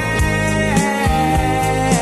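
Background music: a song with a steady beat and a sung melody.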